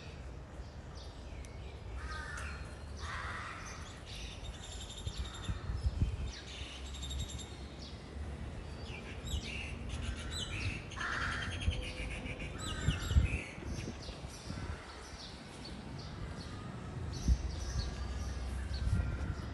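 Birds calling outdoors: many short calls and chirps, some lower and some higher-pitched, scattered throughout over a low steady rumble.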